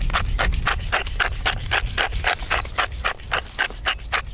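Wooden pepper mill grinding black peppercorns, a rapid, even rasp of about six strokes a second as it is twisted back and forth.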